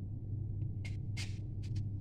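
A kitchen knife cutting into a fresh apple: a few short, crisp cuts about a second apart, over a steady low hum.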